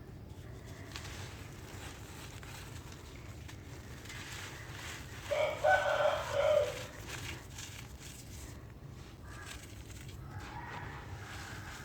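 Dry red brick dirt crumbling, faint scattered crunches and crackles. About five seconds in, a loud bird call lasting about a second and a half rises over it, and a fainter call comes near the end.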